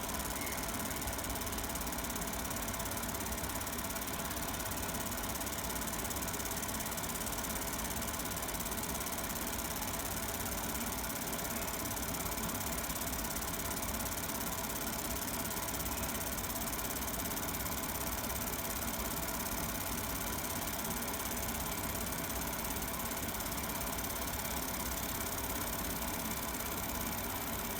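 Steady mechanical hum and hiss with a few faint steady tones, from a 50 W fiber laser marking machine running during deep engraving on metal.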